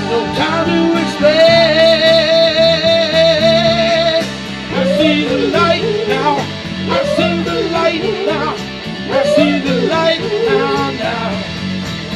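Live band playing a soul-rock song through a PA: drums, bass and keyboard under a wavering lead melody line that holds one long note for a few seconds about a second in, then bends up and down.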